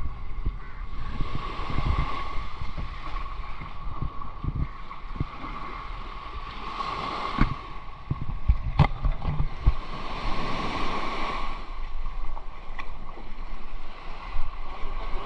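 Small waves washing up the beach, the hiss of the wash swelling and falling every few seconds, with gusts of wind buffeting the microphone.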